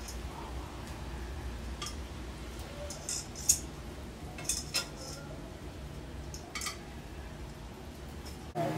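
Metal kitchen tongs clicking and clinking against a grill pan and a plate as grilled food is lifted off: a handful of sharp clicks, the loudest about three and a half seconds in, over a steady low hum.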